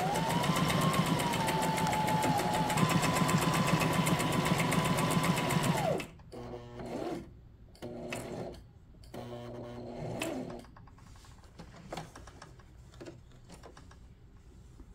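Brother SM2700 sewing machine stitching a decorative stitch on cotton fabric. The motor whine rises as it starts, the machine runs steadily at speed with rapid needle strokes for about six seconds, then stops. A few shorter, quieter runs follow, then only faint clicks.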